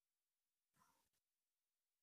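Near silence: the sound track is all but empty.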